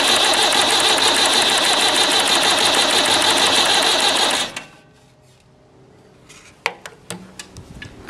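Tractor starter motor cranking the engine with a fast, even churning, then cutting off suddenly about four and a half seconds in without the engine catching. A few light clicks follow.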